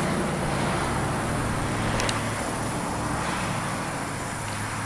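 A vehicle engine running steadily, a low even hum under a noisy hiss, with a faint click about two seconds in.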